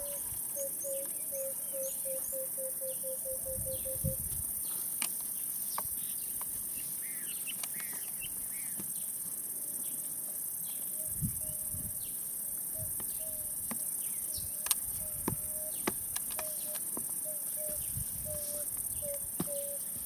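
Savanna bush ambience: a steady high insect drone, with a bird calling a string of short low notes that speeds up over the first few seconds and comes back at a slower, steadier pace later. A few soft low knocks stand out here and there.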